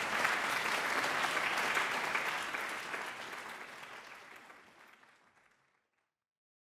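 Audience applauding, a dense patter of many hands clapping that fades out over the last few seconds.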